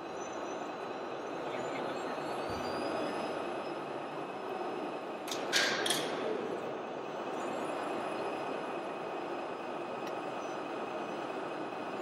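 RC model trucks running, their electronic sound modules giving a steady engine hum. About halfway through come two short, sharp hisses of air.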